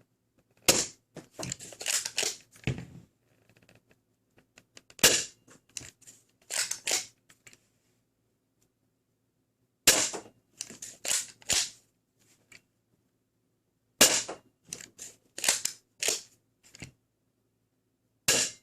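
Dart Zone Pro Mk2 spring-powered foam dart blaster, fitted with an extended barrel, firing five shots about every four to five seconds. Each sharp shot is followed by a quick run of clacks and clicks as the blaster is primed and reloaded.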